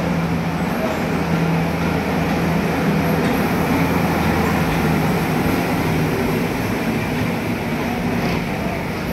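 Wildlife Express Train rolling slowly into the station: a steady rumble of the train running past, with a low steady hum that drops away about halfway through as the locomotive goes by and the coaches follow.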